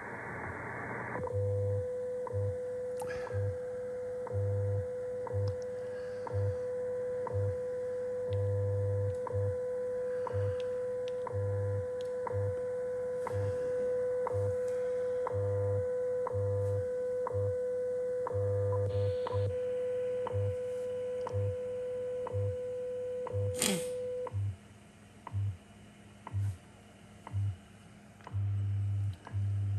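WWV shortwave time-signal broadcast on 15 MHz from a radio receiver's speaker, after about a second of hiss while the radio is tuned in. A steady 500 Hz tone with a short tick every second and low time-code pulses underneath; the tone stops about 24 seconds in, leaving the ticks and pulses. There is one sharp click just before the tone ends.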